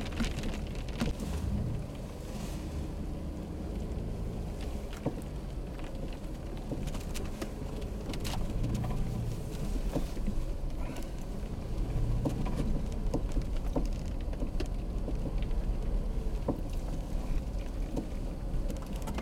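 Steady low rumble of strong wind buffeting a car in a snowstorm, with wind-driven snow ticking on the window now and then. A tractor-trailer passing outside adds to the rumble in the second half.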